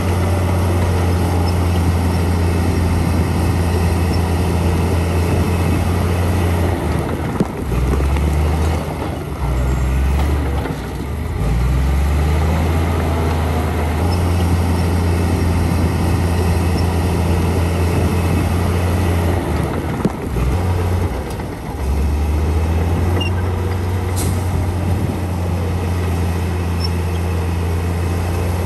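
Diesel engine of heavy earthmoving machinery running with a steady low drone, which dips and picks up again a few times.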